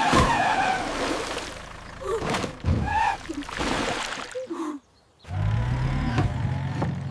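Cartoon vehicle sound effects: short tyre squeals near the start and again about three seconds in, then, after a brief gap, a steady low engine hum from about five seconds in.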